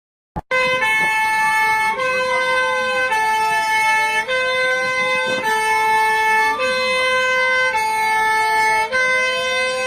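Emergency alert alarm tone: a two-tone hi-lo signal switching pitch about once a second, with a siren wail slowly rising and falling beneath it. It starts with a click about half a second in.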